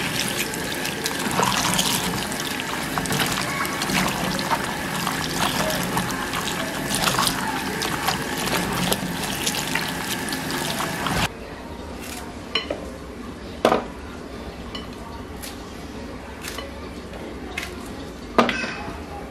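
Kitchen tap water running into a bowl of okra pods as hands rub them clean under the stream; the water sound stops abruptly about eleven seconds in. After that come a few light knocks and clicks.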